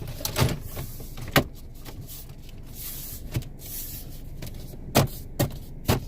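Plastic dashboard trim piece being handled and pressed into place, a string of sharp clicks and knocks, several of them close together near the end, over a low steady hum.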